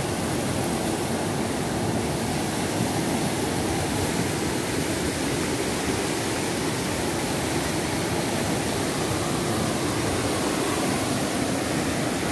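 Whitewater rapids of the Soča river rushing over rocks, a steady, even rush of water.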